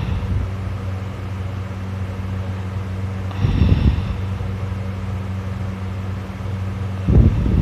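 A person snoring loudly in sleep: rough snores recur about every three and a half seconds, one about three and a half seconds in and another starting near the end, over a steady low hum.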